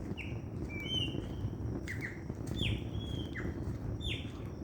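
Songbirds calling at dawn: short whistled notes, most sweeping quickly downward, repeated about twice a second.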